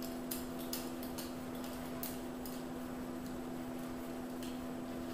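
Oily hands rubbing and working beard oil through a long beard, making soft, irregular sticky clicks, over a steady low hum.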